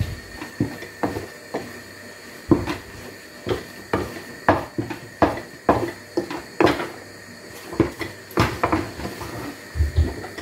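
Wooden cooking stick knocking and scraping against a nonstick pan while stiff ugali (maize-flour dough) is stirred and pressed, in irregular knocks about one or two a second.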